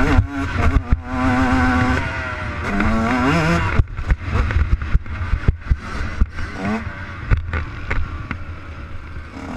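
Two-stroke Yamaha YZ 144 motocross engine under hard throttle, its pitch climbing in repeated sweeps and dropping back at each gear change. From about four seconds in the sound turns choppy, with the throttle blipped on and off and many sharp knocks and clatters as the bike crosses rough ground.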